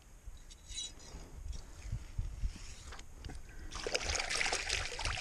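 Hands splashing and sloshing in shallow, muddy water, starting suddenly about three and a half seconds in and continuing busily, over a low rumble.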